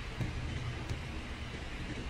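Steady low hum and hiss of a quiet room, with a couple of faint mouse clicks.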